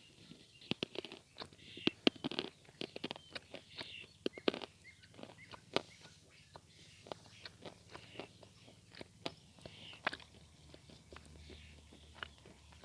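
Dry lumps of Vasilpole natural chalk being bitten and chewed close to the microphone: sharp crunches and crackles, coming thick and fast in the first few seconds, then sparser chewing.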